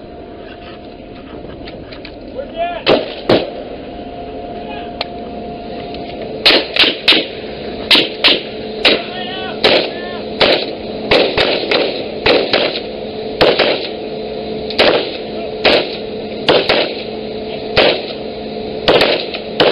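Rifle fired in single shots: two shots about three seconds in, then a steady string of single shots, a little more than one a second, from about six seconds on. Each shot is sharp with a short ringing tail, over a steady hum.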